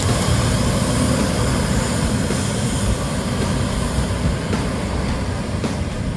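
Intercity bus engine running as the bus pulls away, a steady low rumble with a hiss on top that slowly fades.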